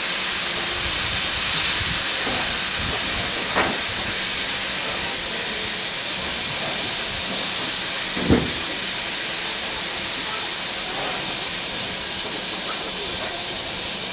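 Steady hiss of steam from a steam locomotive as its train moves slowly along, with two short knocks, the louder one a little past the middle.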